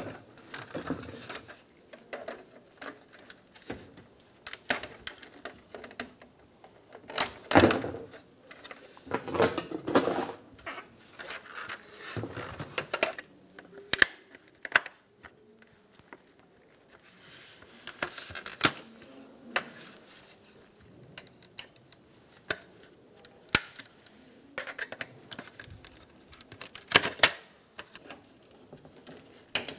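Plastic retaining tabs clicking and snapping as chrome trim strips are pried out of a 2013-2017 Honda Accord's plastic upper grille with a small pick tool. Irregular clicks and light plastic and metal rattles, with a few louder snaps as pieces come free.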